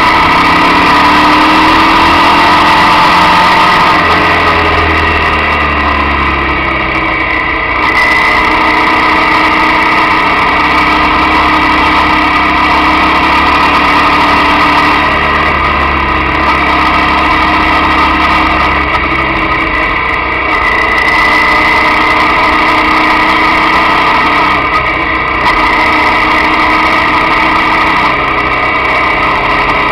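Motorcycle engine running steadily on a winding road, its pitch rising and falling several times with changes of throttle and gear, over a steady rush of wind and road noise.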